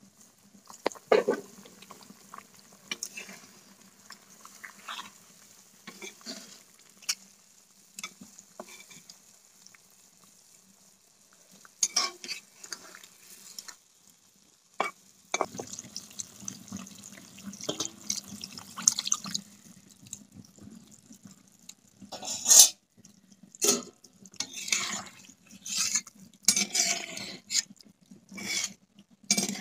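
A steel spatula stirring a pomfret and bottle-gourd curry in a black iron kadai, scraping and clinking irregularly against the pan while the curry sizzles. The stirring is busiest in the second half.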